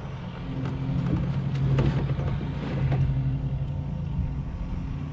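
Boat motor running with a steady low hum, with a few faint knocks over it.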